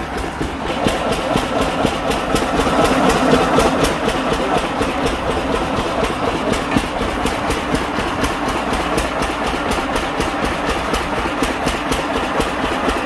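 Sugarcane crusher running steadily while cane is pressed for juice, a machine noise with a regular knocking several times a second.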